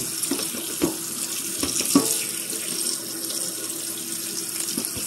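Kitchen tap running steadily, its stream splashing onto canned mixed vegetables in a plastic colander over a stainless steel sink, with a few light knocks, the sharpest about two seconds in.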